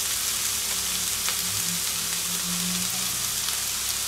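Chicken and chopped carrot, cabbage and bell pepper sizzling steadily as they fry in an oiled pan.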